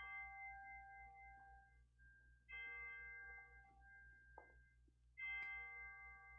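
Three faint chime strikes about two and a half seconds apart, each a cluster of bell-like tones that rings on and fades away.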